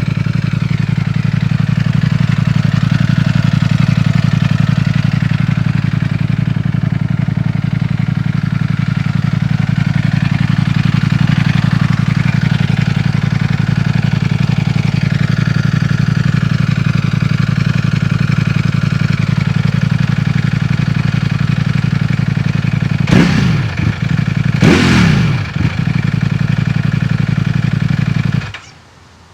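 Ducati Panigale V4S's stock-exhaust 1103 cc V4 engine running loudly at a steady pitch, then two loud sweeps that fall in pitch, before the sound cuts off suddenly near the end.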